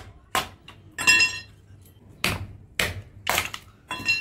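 A metal blade chopping and splitting thin firewood by hand: a string of sharp wooden knocks about two a second, with a short pause near the middle. Two of the strokes end in a brief metallic ring.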